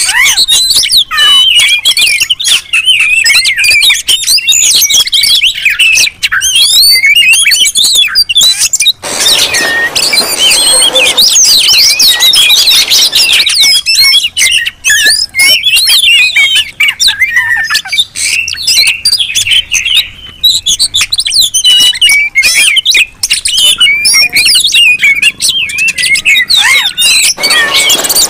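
Oriental magpie-robins singing loudly, several at once: a dense, unbroken stream of fast, quickly changing whistled phrases. This is the agitated, combative song used as a lure to provoke other magpie-robins into singing.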